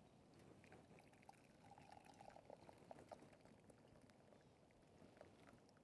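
Faint trickle of coffee poured from a small kettle into a metal mug, strongest about two to three seconds in.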